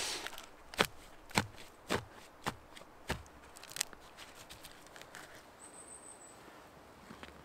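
Hatchet chopping into moss-covered forest ground, about seven sharp knocks a little over half a second apart, then softer rustling and tearing as a mat of moss is pulled up by hand.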